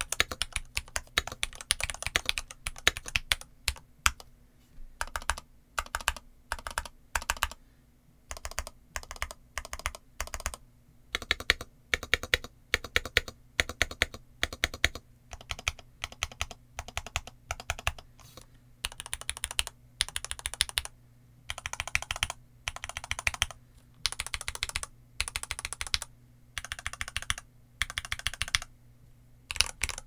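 Mechanical keyboard typing on an MK80 Max with Gateron Milky Yellow Pro linear switches and dye-sub PBT Cherry-profile keycaps. Fast continuous typing for about four seconds, then short bursts of keystrokes separated by brief pauses.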